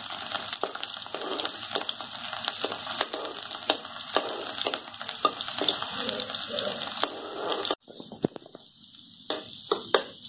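Crushed garlic cloves sizzling and crackling in hot coconut oil in an iron kadhai as they are stirred with a ladle, for a tempering. The sizzle drops off suddenly about three quarters of the way through, leaving fainter frying and a few sharp clicks.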